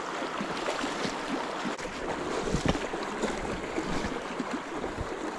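Fast, swollen creek current rushing steadily, with small crackles running through it.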